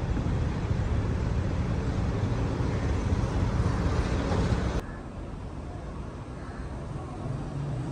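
Outdoor city street ambience, mostly a dense rumble of traffic noise, that cuts abruptly about five seconds in to a quieter stretch of street noise.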